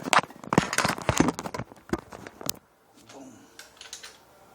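12 V Kawasaki impact wrench hammering on a plastic lug nut cover: a loud, irregular clatter of knocks for about two and a half seconds, then quieter handling clicks.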